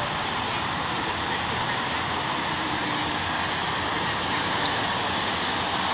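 Steady outdoor background noise, an even hiss and rumble with no distinct events.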